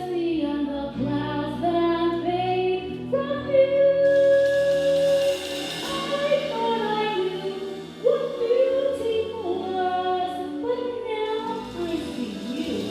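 A female voice singing a slow ballad over musical accompaniment, holding long notes.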